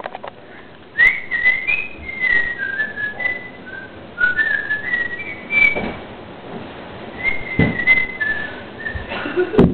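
A person whistling a tune: a string of short held notes stepping up and down, with a break partway through and a few dull thumps among it.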